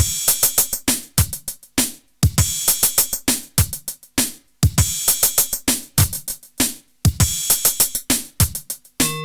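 Electronic drum machine beat: deep kicks that drop in pitch, under fast, busy hi-hat ticks. The pattern repeats in phrases about every two and a half seconds, each cut off by a short break. Near the end a sustained synth note comes in.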